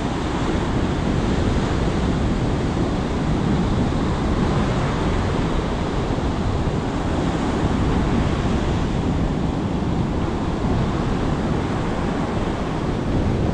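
Surf breaking steadily on a sand beach, with wind buffeting the microphone.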